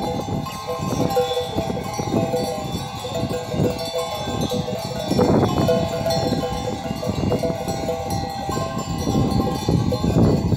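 Bells on a grazing flock of sheep clinking and ringing steadily, with sheep bleating now and then, louder about halfway through and near the end.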